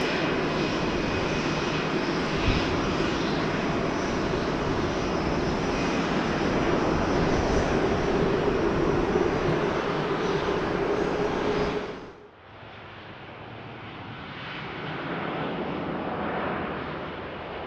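Jet airliner engines running loud and steady, a dense rush with a held drone through it. About twelve seconds in the sound cuts off abruptly to a quieter jet noise that gradually grows louder.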